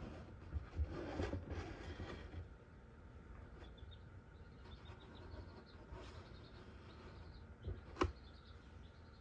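Faint handling noise of eggs being swapped on a candling light: rustling and low bumps in the first couple of seconds, then one sharp click or tap about eight seconds in.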